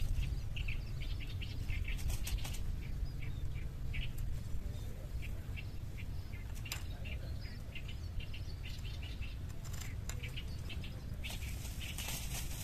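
Small birds chirping again and again over a low steady rumble, with a few sharp clicks that come thickest near the end.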